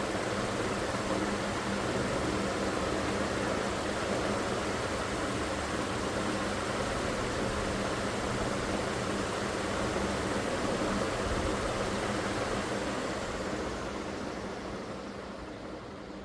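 Ceiling fan running, a steady rush of air with a faint low motor hum, fading away near the end.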